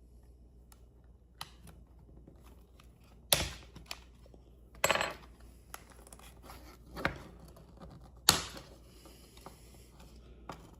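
Plastic shell of a 3.5-inch floppy disk being pried apart by hand: four sharp snaps and cracks spread a second or two apart, with small clicks and scrapes between them.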